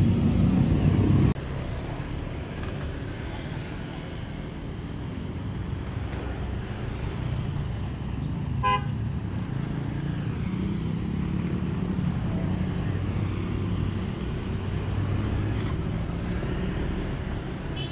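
Road traffic of motorcycles and cars passing, a steady low rumble, with one short horn toot about halfway through. A louder low rumble in the first second cuts off suddenly.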